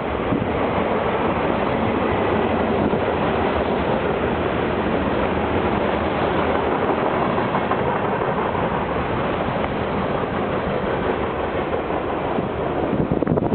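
A freight train's cars rolling past: a steady noise of steel wheels on rail.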